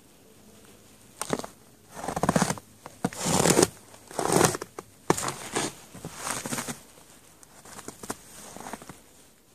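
A run of loud rustling, scraping noises close to the microphone, in about seven rough bursts of half a second or so, the loudest a few seconds in.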